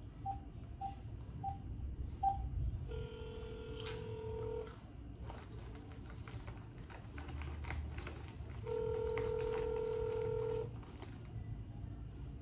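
Smartphone on speaker placing a call: a few short keypad beeps, then the ringback tone of the unanswered outgoing call ringing twice, each ring about two seconds long with about four seconds between.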